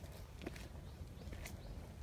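Footsteps crunching irregularly through dry fallen leaves and twigs on a forest floor.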